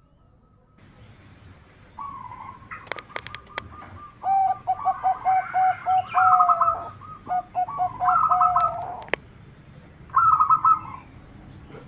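Zebra dove cooing: a run of short, rapidly repeated trilled coos that starts about two seconds in and breaks off, then a short burst of coos near the end. A few sharp clicks are mixed in.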